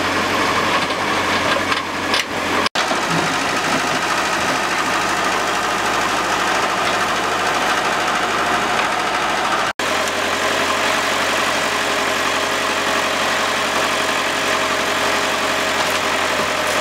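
Diesel engine of a backhoe loader running steadily while it digs through collapsed rubble, with two brief breaks in the sound where the footage is cut.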